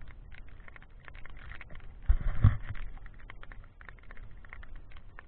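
Loose stones and gravel clicking and crunching as someone steps and picks over rubble, with a heavy low thump about two seconds in.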